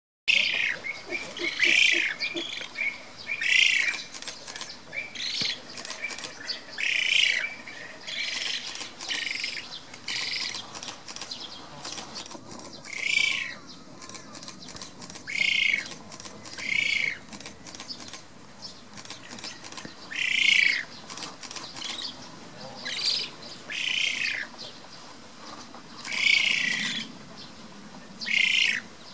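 Black-faced spoonbill chick calling over and over, each call a short high note that wavers in pitch, one every second or two.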